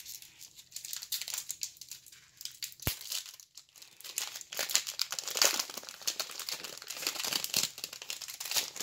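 Foil wrapper of a trading-card pack crinkling and tearing as it is pulled open by hand, a dense run of crackles that grows louder in the second half. One sharp click about three seconds in.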